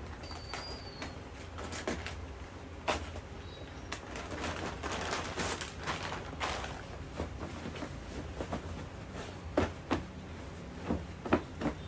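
Plastic packaging crinkling and pillow fabric rustling as a new pillow is pulled from its wrapping and handled. A few sharp taps stand out near the end.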